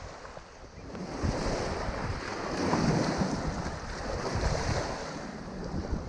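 Gusty wind buffeting the microphone, with choppy lake water lapping at the shore; the wind noise swells about a second in and is loudest around the middle.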